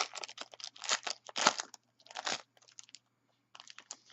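Plastic trading-card pack wrapper crinkling and crunching as it is worked and torn open: a dense run of crackles, then a short pause and a few sparser ones near the end.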